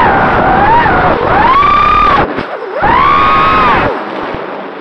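Four ZMX Fusion 2206 2300kV brushless motors on an FPV racing quad screaming, swinging in pitch with throttle, their DAL 5040 three-blade props adding to the note. The whine cuts out abruptly about two seconds in and comes back half a second later with a rising pitch. Near the end it falls away to a quieter hum as the throttle comes off.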